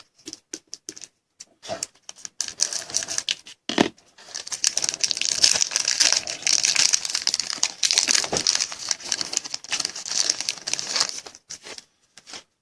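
A foil trading-card pack wrapper being handled and torn open, with a few scattered rustles and clicks, then about seven seconds of continuous crinkling, which dies away near the end.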